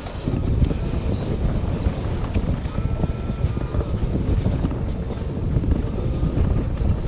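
Wind buffeting a GoPro action camera's microphone aboard a boat at sea: a steady, dense low rumble with the boat and water beneath it.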